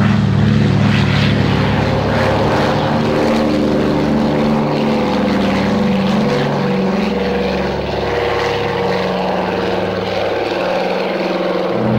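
The two Pratt & Whitney R-1830 Twin Wasp radial engines of a Consolidated PBY-5A Catalina running at high power with a steady propeller drone, on the takeoff run and lift-off.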